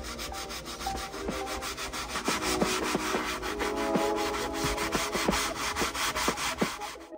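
Gloved hand scrubbing foamy cleaner into a leather car seat: quick, even back-and-forth strokes, about seven a second, with short squeaks from the leather. The scrubbing stops abruptly near the end.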